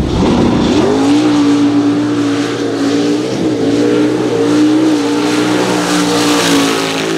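Mud-racing pickup truck's engine revving up hard at the launch in the first second, then held at wide-open throttle at high revs, its pitch steady with slight wavering, dropping off right at the end.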